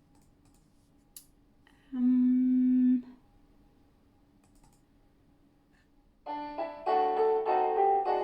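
A single steady note held for about a second, then a few seconds later a piano begins playing chords, the introduction to the next song.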